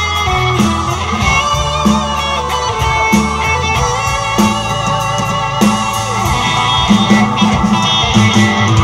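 Live rock band playing an instrumental passage: electric guitar, bass guitar, drum kit and keyboard, with a steady beat.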